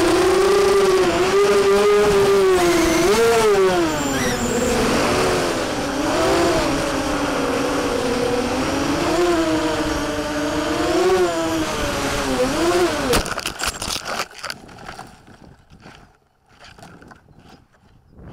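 Mini quadcopter's brushless motors and propellers whining, the pitch rising and falling with throttle changes, until the motors cut off abruptly about 13 seconds in. After that there are faint rustles and knocks as the quad comes down in dry grass.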